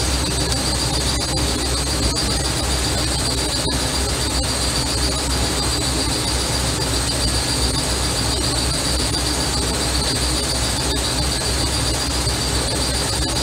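A steady high-pitched whine over a low hum, unchanging throughout, with no tool knocks or clicks standing out.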